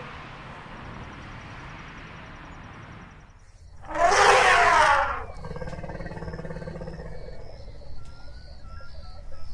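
An elephant trumpeting once, a loud harsh blast of a little over a second about four seconds in, over steady outdoor background noise. Faint repeated high chirps follow it.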